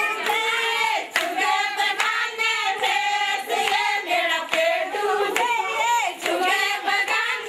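A group of women singing a Pahari jhamakda folk song together, with hand claps keeping the beat.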